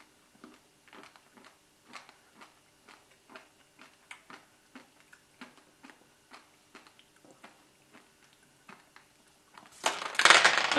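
Quiet, regular chewing and crunching on candy, about two soft crunches a second. About ten seconds in, a loud, brief rattle of candies tipped out of a cup onto the table.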